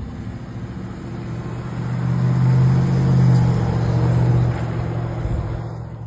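A pickup truck driving past close by: its engine noise swells to a peak about three seconds in, then fades away.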